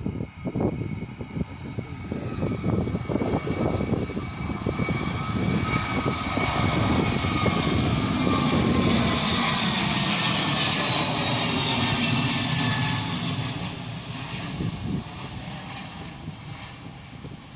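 Airbus A321neo jet airliner with Pratt & Whitney geared turbofan engines, climbing out on departure. Its roar builds to a peak about halfway through and then fades as it passes, while its engine whine slides down in pitch.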